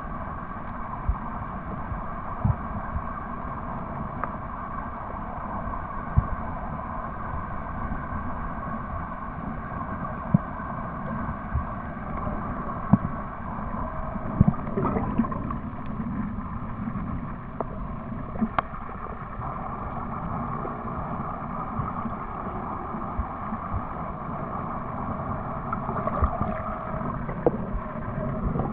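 Underwater ambience picked up by a camera submerged in shallow water: a steady, muffled wash of water noise with scattered small clicks and knocks.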